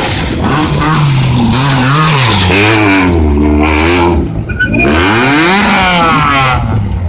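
Super 2000-class rally car's engine accelerating hard. Its pitch climbs and drops back repeatedly through gear changes, eases off briefly about four seconds in, then climbs again.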